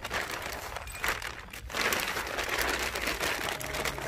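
Thin plastic carrier bag rustling and crinkling as it is handled and filled with broken phones, louder from about halfway. Background music comes in near the end.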